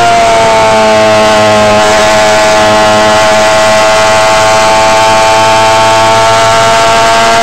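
Star Mazda race car's Mazda rotary engine running at high revs under steady throttle, heard from on board. Its pitch eases slightly in the first second, then holds nearly level.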